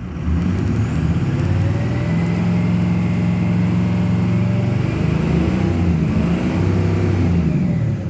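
A 2006 Ford F-250 Super Duty's 6.0 Power Stroke V8 turbo-diesel is revved up and held, sagging a few seconds in and picking up again before dropping back near the end. The engine is running rough and losing power; the owner suspects bad injectors or a failing high-pressure oil pump.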